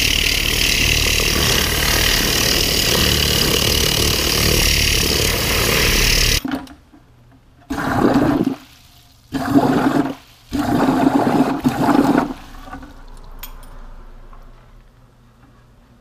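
A Tornador-type compressed-air cleaning gun blasts with a loud, steady hiss, then cuts off suddenly. It then fires three short bursts into a bucket of water, churning the water to rinse debris out of its tip, and the sound fades away.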